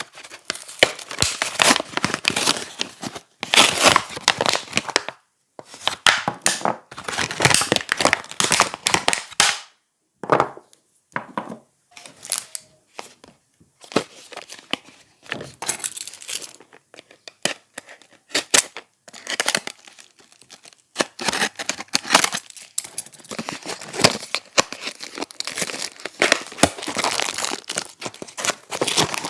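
Soap packaging being torn open and crinkled by hand: dense bursts of rustling and crackling, with a few short pauses.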